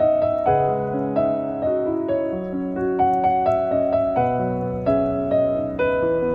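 Background piano music: a gentle melody of struck notes over held lower chords.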